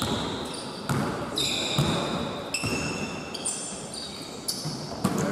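Indoor basketball game: a ball bouncing on the court with a few irregular thuds, and sneakers squeaking shrilly on the floor, in the echo of a large gym.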